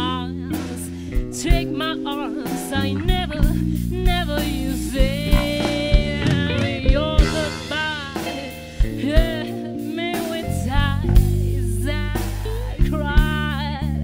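Live blues band playing: a woman singing over a drum kit, electric guitar and bass.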